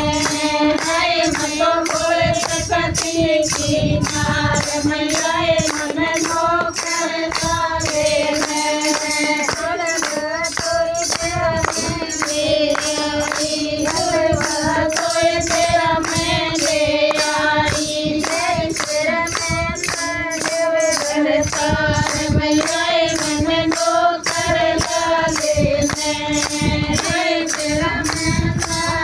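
Group of women singing a folk song together in chorus, kept in time by the steady beat of hand-held jingle tambourines.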